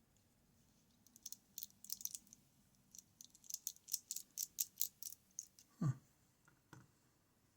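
Small metal parts of a pin-tumbler lock clicking and rattling in a quick irregular run while it is being gutted, followed by a dull knock and a fainter one near the end.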